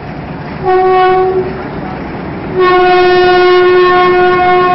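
Diesel locomotive's horn sounding twice as the train passes: a short blast about half a second in, then a long steady blast from about two and a half seconds in, over the rumble of the passing coaches.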